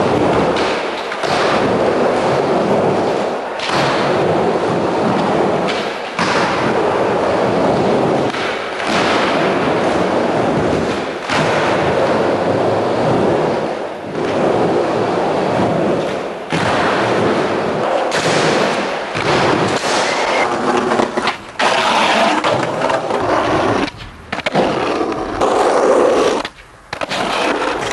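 Skateboard wheels rolling hard over pavement in a steady gritty roll, broken every few seconds by sharp knocks of the board popping and landing.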